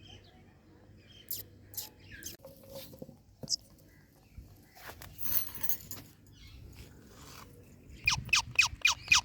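Indian ringneck parrot giving scattered short chirps and squawks, with a brief scratchy noise midway, then near the end a fast run of sharp, repeated calls, about five a second.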